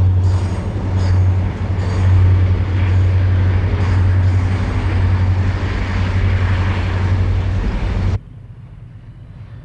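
Freight train of boxcars rolling past, a loud steady rumble and clatter of wheels on the rails. It cuts off suddenly about eight seconds in, leaving a much quieter steady background.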